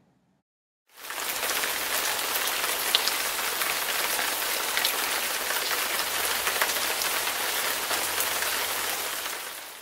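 Rain falling steadily: a dense, even hiss with scattered sharp drop ticks. It fades in about a second in and fades away near the end.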